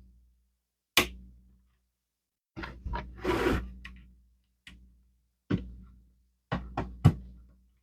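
Plastic Lego pieces being handled, pressed together and set down on a table: a string of separate sharp clicks and knocks, with a short rustle about three seconds in.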